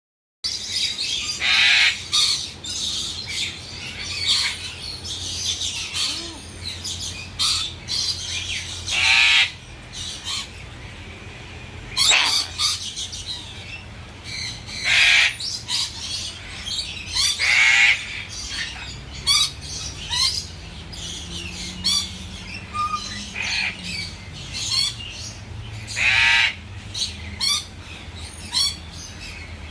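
Parrots giving loud, harsh squawks every few seconds, with shorter chirps and calls in between.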